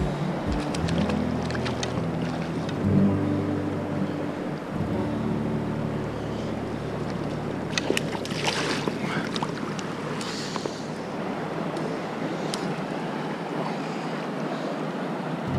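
Shallow mountain stream running steadily over rocks around a wading angler, with a small splash on the water about eight seconds in.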